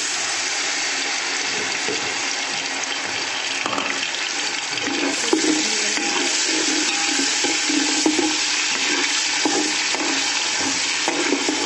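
Ginger-garlic paste sizzling in hot oil in a steel pot, a loud, steady hiss. From about halfway through, a metal spoon stirring and scraping against the pot clatters lightly underneath.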